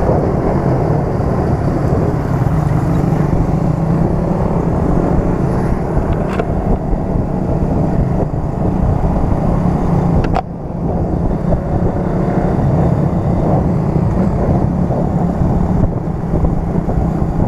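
Motorcycle engine running while riding at road speed, heard from the rider's own bike, mixed with a steady rush of wind. The sound drops briefly about ten seconds in, then picks up again.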